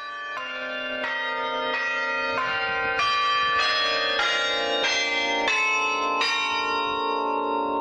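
Carillon bells playing a tune: about ten notes of different pitch are struck in steady succession, roughly two-thirds of a second apart, each ringing on under the next. The last note, struck near the end, is left to ring out.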